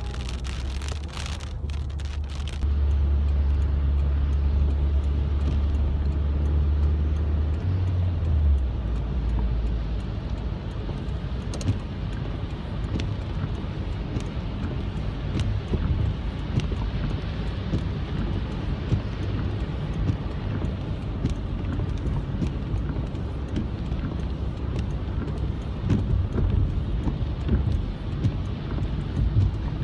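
Inside a car driving in heavy rain: the engine and the tyres running on a wet road make a steady low rumble, with raindrops ticking on the car. The ticking on the glass is clearest in the first couple of seconds, before a strong low hum sets in that eases off about eight to ten seconds in.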